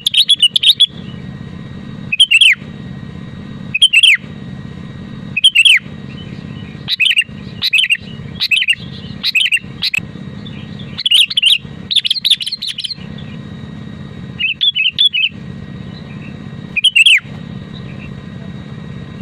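Sooty-headed bulbul (kutilang) singing: short, bright phrases of a few chirpy notes, many ending in a quick downward sweep, repeated every second or two. A steady low hum runs underneath.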